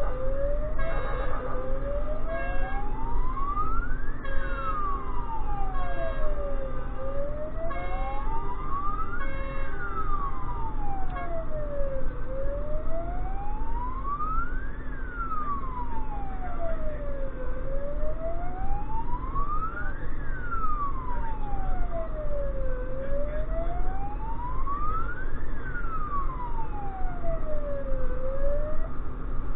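Emergency vehicle siren in wail mode, heard from inside the vehicle's own cab, rising and falling slowly about every five seconds over the steady drone of the engine. For the first ten seconds or so, short repeated horn-like blasts sound over it about once a second, and the wail stops near the end.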